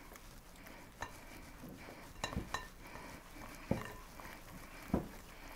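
Flour, oil and water dough being stirred in glass mixing bowls: a soft scraping, with about five sharp clinks of utensils against the glass.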